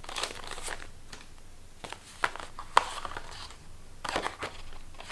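Paper cards and envelopes being handled and shuffled: irregular rustling and crinkling with a few sharp taps and snaps.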